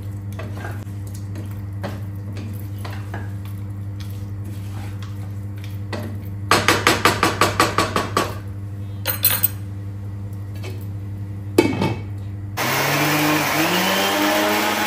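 A wooden spatula scraping and stirring chicken in a nonstick pot, with a quick run of about a dozen knocks of the spatula against the pot about six seconds in. Near the end an electric mixer grinder starts, its motor whine rising in pitch as it comes up to speed, grinding fried onion and garlic into a paste. A steady low hum runs underneath.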